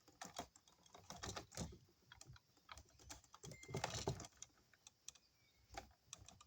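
Faint, irregular small clicks and scraping of a plastic twist-on wire nut being turned by hand onto a splice of twisted wires.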